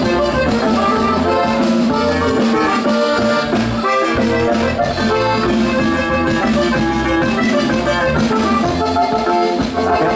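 Regional Mexican dance band playing an accordion-led tune over a steady, pulsing bass line.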